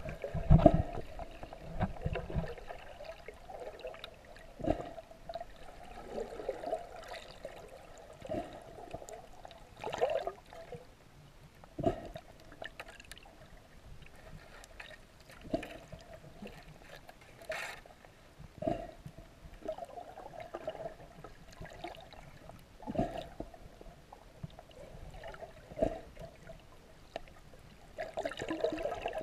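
Muffled underwater water sound: gurgling and sloshing, with a soft knock or splash every two to three seconds.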